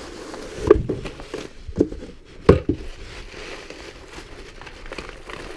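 Cardboard box and plastic packaging handled while a harmonic dampener is unpacked: three sharp knocks in the first two and a half seconds, then a light crinkling of the plastic bag wrapped around the part.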